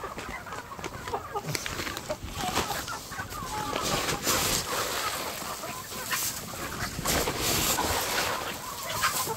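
A flock of chickens clucking, with bursts of hissing noise from about four seconds in.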